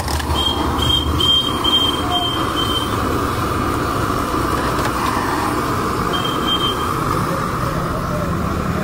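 Steady din of a street-food stall, with a gas burner and egg-soaked bread frying in a pan over street traffic noise. A run of about six short high beeps comes in the first three seconds, and two more come later.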